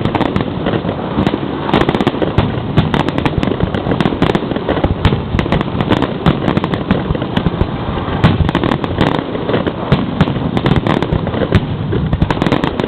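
Fireworks exploding in rapid, continuous succession, heard up close at the launch site: a dense run of sharp bangs and crackles with no let-up.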